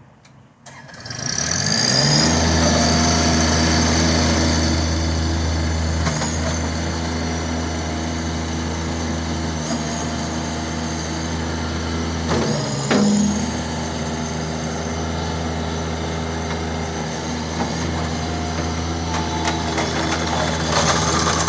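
Bobcat MT52 mini track loader's diesel engine comes up to speed about a second in, then runs steadily, with a brief dip and jolt about halfway through.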